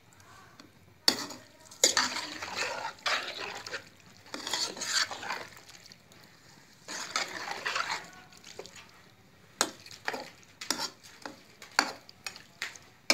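Slotted metal spoon stirring and scraping wet raw minced meat and onions in a metal wok, with sharp taps of the spoon against the pan. The scraping comes in three spells of about a second each, and the taps come in a quick run near the end.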